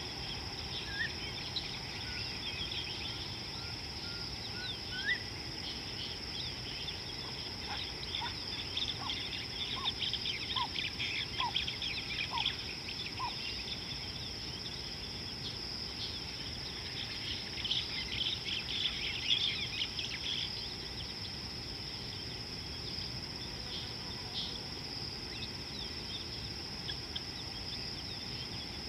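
Bush ambience: a steady, high-pitched insect trill with birds chirping over it. The chirping comes in two busier bouts, and one bird gives a series of short, rising whistles.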